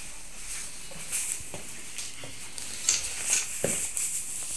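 Close rustling with scattered soft taps and a few sharper clicks about three seconds in, from the phone being moved right up against a pet's fur.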